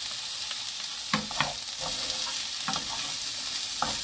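Sliced cucumber sizzling in a nonstick frying pan just taken off the heat, tossed with two wooden spatulas that knock and scrape against the pan a few times over a steady hiss.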